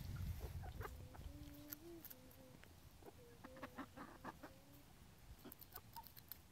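Feeding hens giving a few soft, long-drawn calls with slight rises in pitch, among faint scattered clicks.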